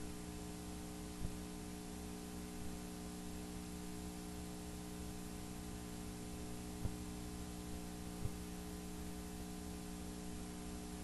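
Steady electrical hum from the sewer inspection camera equipment, with a few faint clicks.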